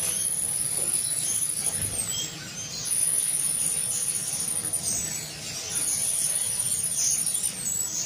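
A steady, very high-pitched whine or trill that breaks off with a brief downward dip about every three seconds, over faint chirps from a cage of young parrot finches.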